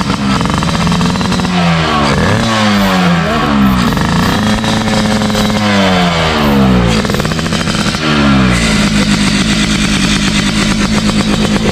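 Yamaha RX King two-stroke single-cylinder motorcycle engine with a chrome under-belly exhaust and an open air filter, set up for the 'ngorok' snoring sound. It runs steadily, is revved up and down several times from about a second and a half in until about eight and a half seconds in, then settles back to a steady run.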